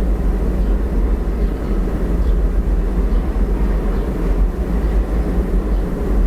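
Steady low rumble of background noise, with a strong deep hum underneath and no clear events.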